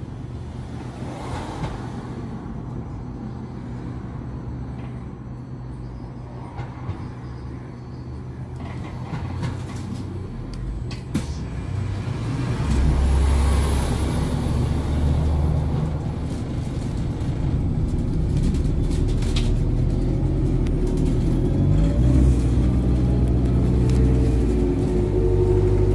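Interior of an Alexander Dennis Enviro400H MMC hybrid double-decker bus running, with its low drone and rattles around the cabin. About halfway through it pulls away and gets louder, and a whine rises in pitch near the end as it gathers speed.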